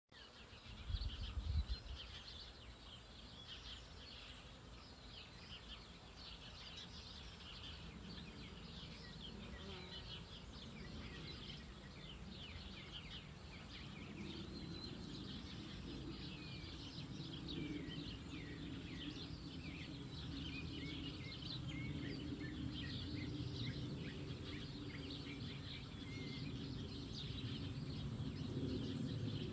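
Worker bees buzzing around a palm's flower cluster: a low, steady hum that grows stronger about halfway through. Many birds chirp high above it throughout, and there is a brief low thump about a second in.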